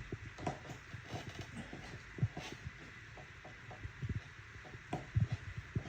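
Soft, irregular thumps and knocks of hands pressing and patting dumpling dough flat on a floured pastry mat.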